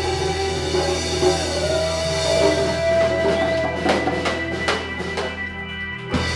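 Live reggae band (drum kit, congas, electric guitar, bass and keyboard) holding a sustained closing chord. Several separate drum kit hits ring out over the chord in the last few seconds, and the bass note drops out near the end, as the song finishes.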